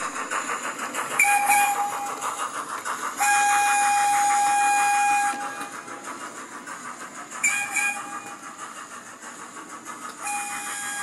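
OO gauge model train's horn sounding four times: a short blast, a long one of about two seconds, another short blast, and one more near the end. Underneath runs the train's steady running sound with a fast even beat.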